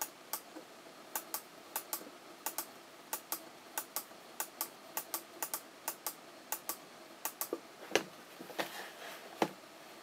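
Irregular sharp clicks, about two or three a second, as the knobs on an old hi-fi radio's front panel are turned and handled by hand, with two louder knocks near the end.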